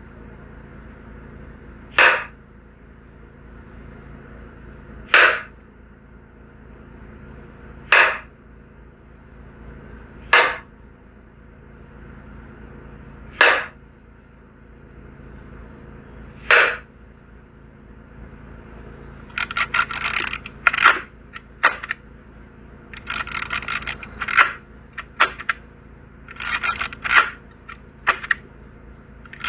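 Camera shutter clicks, as in shooting stop-motion frames. Six single shots go off about three seconds apart, then, from about two-thirds in, quick bursts of rapid shutter clicks.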